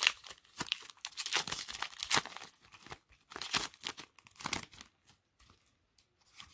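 Trading card pack wrapper being torn open and crinkled: a run of sharp rustles and tears over the first five seconds or so, then only a few faint clicks and rustles.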